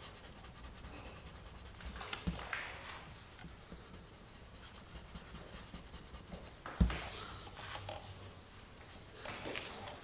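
Small hand sanding block with fine-grit paper rubbing over cured clearcoat on a car panel in short scratchy strokes, levelling a crater and dust nibs; the clear cuts easily without clogging, a sign it has fully dried. A single sharp knock about seven seconds in.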